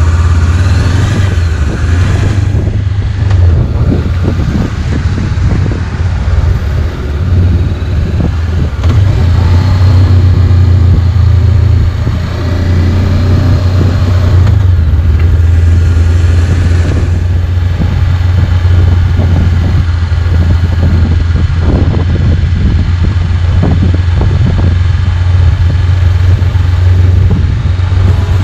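Motorcycle ride heard on the bike's camera microphone: engine running under heavy, steady wind rumble.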